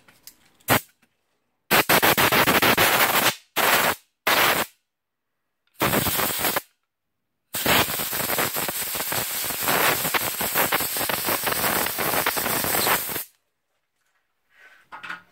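Compressed air blasting carbon-brush dust off a freshly sanded drill-motor commutator, in bursts: several short blasts in the first seven seconds, then one long blast of about six seconds.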